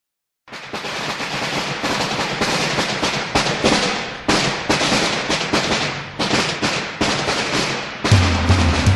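A long string of firecrackers going off in a dense, continuous crackle of sharp bangs. About eight seconds in, a band's drums and bass begin playing.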